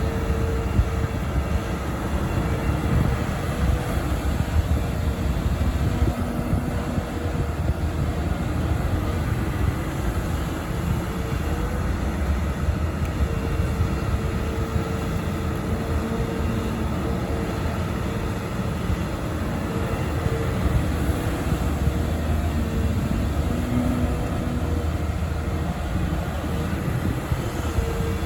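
Volvo EC300E excavator's diesel engine running under load with a steady low rumble while it works, with a higher whine that comes and goes.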